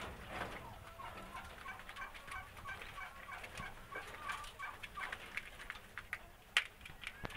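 Quails chirping with many short, high peeps, mixed with light ticks and one sharp tap about six and a half seconds in.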